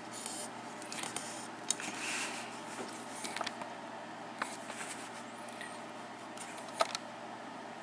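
Handling noises from a lock and small tools being set up for picking: scattered light metal clicks and rustles, with a few sharper ticks, over a faint steady hum.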